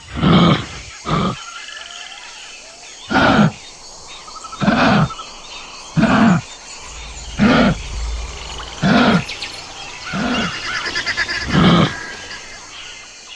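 Kangaroo calling with a series of short, low, throaty calls, nine in all, repeated about every second and a half.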